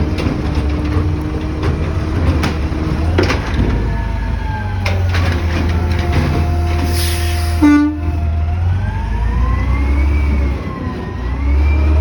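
Garbage truck engine running steadily, with a few knocks in the first few seconds and a single short horn honk about three quarters of the way through, just after a brief hiss. In the last few seconds a whine rises and falls in pitch over the engine.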